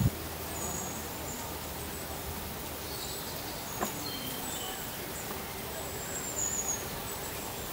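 Outdoor ambience: a steady background hiss with a few short, high bird chirps scattered through it, and a single click about four seconds in.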